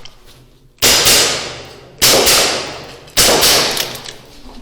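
Three airsoft revolver shots, about 1.2 seconds apart, each sharp crack trailing off over about a second.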